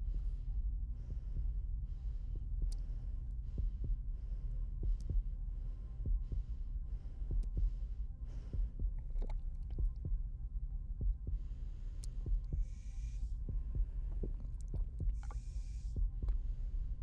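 Heartbeat sound effect: low, pulsing beats over a steady deep rumble.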